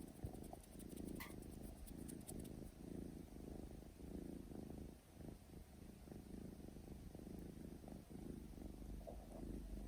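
Domestic cat purring up close, a low purr that swells and fades with each breath, about once a second. A single small click sounds just after the start.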